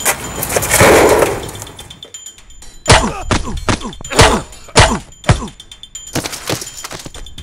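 A rushing swell of noise, then a quick run of hard thuds and bangs starting about three seconds in, several of them trailed by a falling tone.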